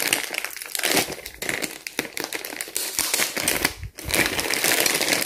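Clear plastic packaging bag crinkling as it is handled and pulled open, a dense run of crackles with a short pause about four seconds in.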